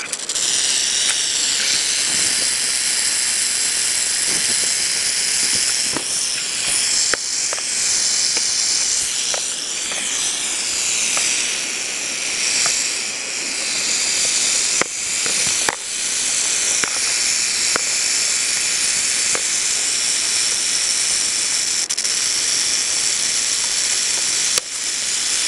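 Rattlesnake's tail rattle buzzing continuously: a steady, high, hissing buzz, the defensive warning of a snake that is being disturbed at close range. A few sharp clicks sound over it.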